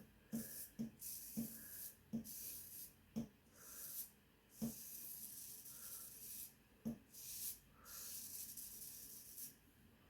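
Safety razor with a Feather Professional AC blade scraping through stubble on a lathered scalp: a run of short strokes, each a faint hissy scrape, with soft taps between strokes.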